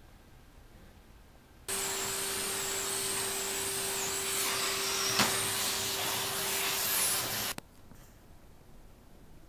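Canister vacuum cleaner running steadily on carpet, a constant hum under a high wavering whistle. It cuts in sharply about two seconds in and cuts off abruptly near the end, with one sharp knock midway.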